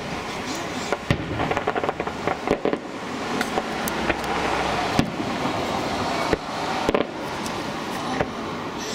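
Aerial fireworks shells bursting with sharp bangs, the loudest about five seconds in, with a run of rapid crackling about a second in.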